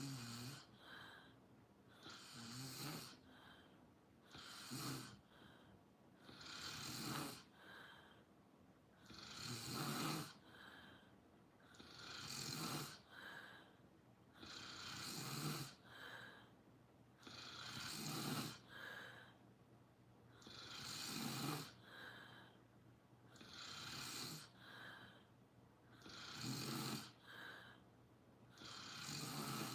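Someone asleep snoring steadily, a snore about every two and a half to three seconds with a softer breath out between.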